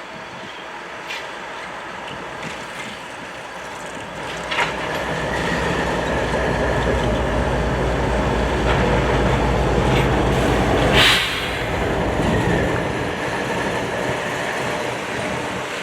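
A train going by: a low engine sound grows from about four seconds in, with a faint high squeal at times and a brief loud burst of noise near eleven seconds.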